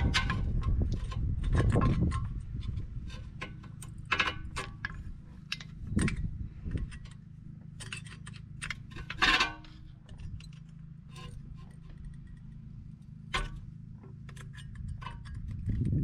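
Scattered light metallic clicks and scrapes of brake hardware: new pad clips and pads being worked into a front disc brake caliper bracket by hand with a small tool. A low rumble fills the first two seconds.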